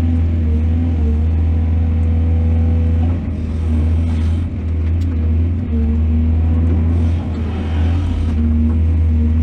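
Diesel engine of an excavator running steadily under load, a deep drone. Twice, a few seconds in and again near the end, a rushing hiss rises over it.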